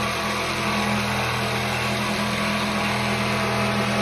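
An engine running at a steady speed, a continuous drone.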